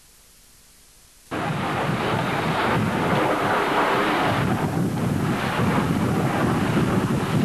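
Faint tape hiss, then about a second in a loud rushing rumble of C-130 Hercules aircraft noise starts suddenly and holds steady.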